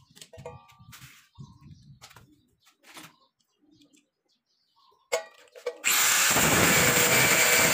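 Light clicks and taps of hand tools and small steel parts being handled, then about five seconds in a click and a 100 mm angle grinder starts up and runs at full speed, loud and steady.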